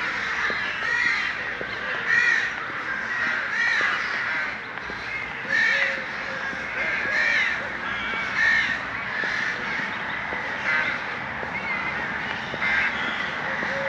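A flock of birds cawing, many harsh short calls overlapping, one after another, without a break.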